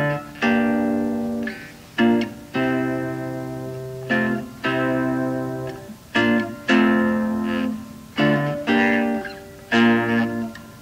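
Chords strummed on a stringed instrument, a pair of strums about every two seconds, each chord ringing out and fading.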